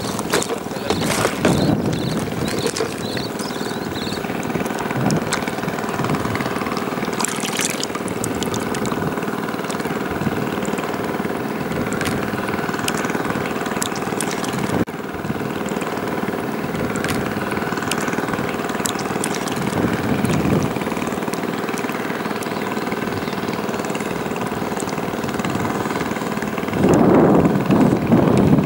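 An engine running steadily, a constant hum of several held tones at an even level, with a louder rush of noise near the end.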